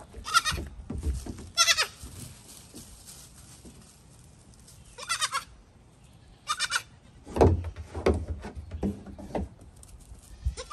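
Goat kids bleating in short calls, four times in the first seven seconds. In the second half, hooves knock and tap on the hull of an upturned dinghy as the kids jump on it, a run of hits with the first the loudest.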